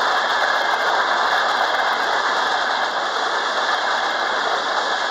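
Trenitalia Frecciarossa ETR500 high-speed electric train passing close by. Its wheels on the rails make a loud, steady rush that holds an even level throughout, with no distinct clatter.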